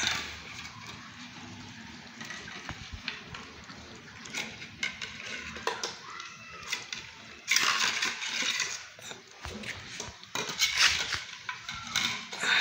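A puppy eating kibble from a stainless steel bowl: chewing and mouthing at the food, with the metal bowl clinking and scraping. There are louder, noisier stretches of eating and bowl rattle about halfway through and again near the end.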